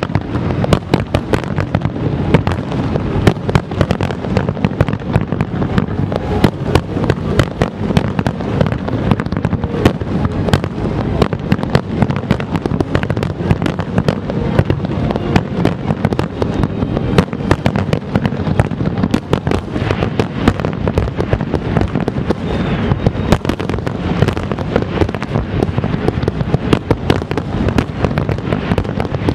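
Aerial fireworks display: many shells bursting in a dense, continuous barrage of bangs and crackle, with a deep rumble underneath and no pause.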